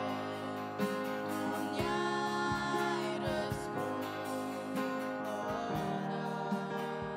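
Girls singing a slow worship song, accompanied on a digital piano, with wavering held notes. The sung phrase fades near the end, leaving the keyboard.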